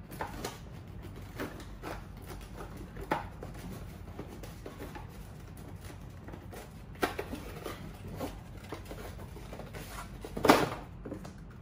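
Cardboard box being opened and handled: scattered rustles, flap tugs and small knocks, with a louder clatter near the end as a clear plastic window bird feeder is drawn out of it.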